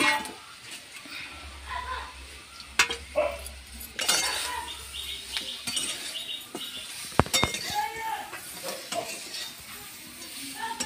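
A metal spatula stirring and scraping dried tamarind pulp in a metal pan of hot mustard oil, with scattered clinks against the pan and a light sizzle.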